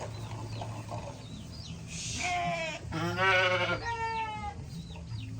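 Sheep bleating: three quavering bleats in a row about two seconds in, the middle one the loudest, over a steady low hum.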